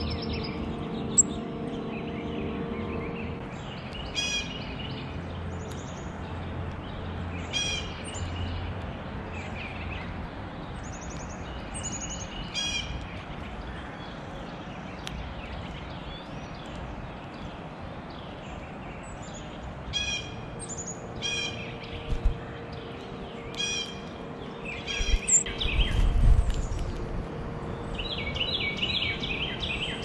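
Small songbirds chirping: short, high call notes repeated every few seconds over a steady outdoor hiss, with a buzzier call near the end. A few low bumps come about three-quarters of the way through.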